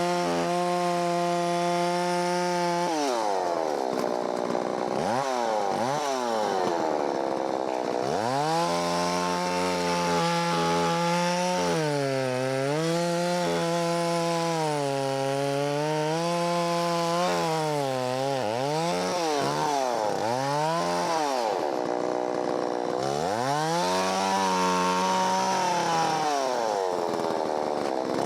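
Holzfforma 660 clone two-stroke chainsaw running at high revs, with the throttle repeatedly let off and opened again so the engine note dips and climbs many times.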